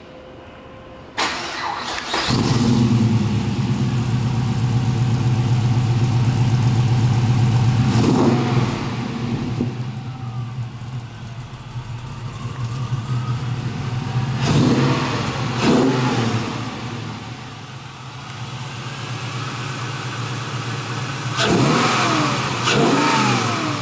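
1969 Camaro's fuel-injected LS1 5.7-litre V8, breathing through Doug's headers and dual exhaust, cranks and fires about two seconds in. It runs at a high idle that settles lower, with a few quick throttle blips that rev up and fall back to idle.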